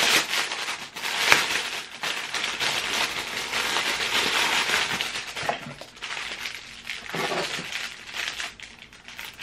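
Clear plastic packaging crinkling as it is handled and pulled open. The crinkling is loudest and most continuous for the first five seconds, then comes in shorter, fainter rustles.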